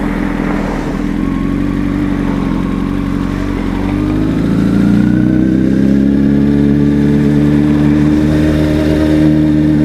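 Sport motorcycle engine running at low revs while riding slowly. Its pitch rises gently about four seconds in and then holds steady.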